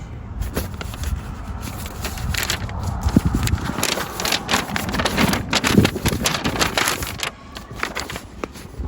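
Hand-handling noise of wiring and small parts: irregular crackling, scraping and clicking over a low rumble.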